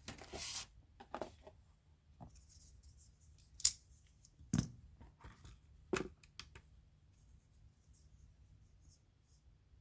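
A folding pocket knife being handled: a short scrape at the start, then a few sharp clicks and light knocks, the loudest about three and a half seconds in.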